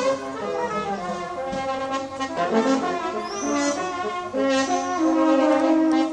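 Loud brass-like horn tones: several overlapping notes held for up to about a second each and stepping from one pitch to another. This is the kind of drawn-out trumpeting put forward as the unexplained 'strange sky noise' of 2012.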